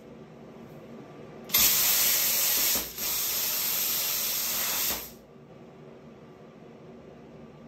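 Everlast 50 A air plasma cutter running at 38 A and 70 psi, cutting 1.6 mm hot-rolled steel: the arc strikes with a loud, abrupt hiss, dips briefly, carries on slightly quieter and cuts off suddenly after about three and a half seconds.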